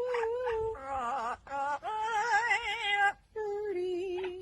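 A bird vocalising in a voice-like way, singing a series of held, wavering notes with short breaks between them.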